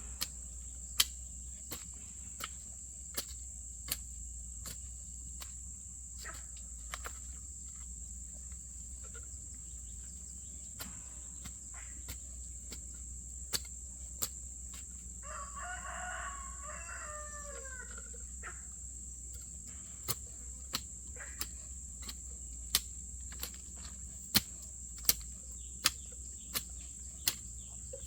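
A rooster crows once, a call of about three seconds about halfway through, falling in pitch at the end. Under it runs a steady high-pitched insect drone, and sharp knocks come at irregular intervals throughout, loudest near the end.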